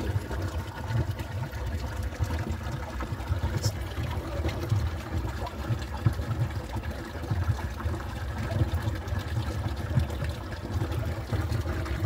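Glacial snowmelt stream running unseen beneath a boulder field, heard through a gap between the rocks: a steady rush of water with an uneven low rumble underneath.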